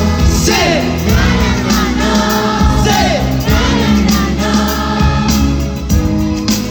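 Thai pop song sung live by a male vocal group over a backing track with a steady bass line. A few sung notes slide downward in pitch.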